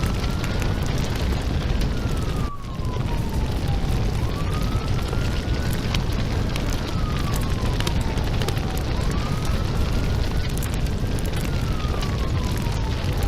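Large house fire burning with a heavy low rumble and dense crackling and popping. Over it a siren wails, rising, holding and falling in slow cycles about every four and a half seconds. The fire noise drops out briefly about two and a half seconds in.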